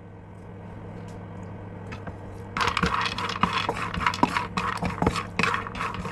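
Whole almonds being stirred in a frying pan with a little ghee, rattling and scraping against the pan, with many sharp clicks. It starts about two and a half seconds in, after a quieter stretch.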